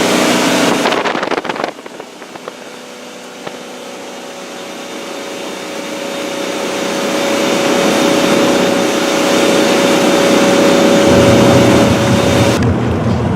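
Boat motor running. The noise drops suddenly about a second and a half in, then a steady hum with a single whine grows louder for several seconds and cuts off abruptly near the end.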